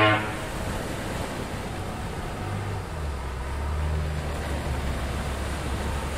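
Steady drone of a motorboat engine with rushing water and wind noise under it. The low hum of the engine settles slightly lower about three seconds in.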